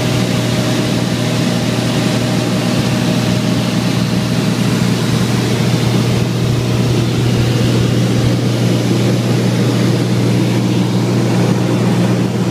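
Cabin drone of a Beechcraft Bonanza P35 in cruise flight: the six-cylinder engine and propeller running steadily with airflow noise over the airframe. It is a constant low hum and rush with no change in pitch.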